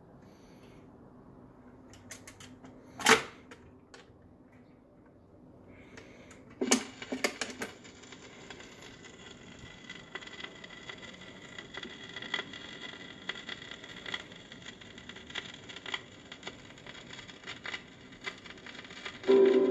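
Vintage RCA record changer cycling: a sharp click about three seconds in, then a cluster of mechanical clicks and thumps as the tone arm sets down on the LP. Steady surface hiss with crackle and ticks of the lead-in groove follows, and saxophone music begins at the very end.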